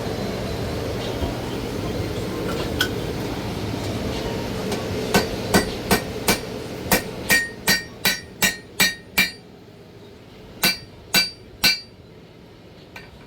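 A forging hammer striking a hot Damascus steel billet on an anvil to draw out its thickness. About a dozen ringing blows land at two to three a second from about five seconds in, then after a short pause come three more. Before the blows there is a steady rushing noise from the forge.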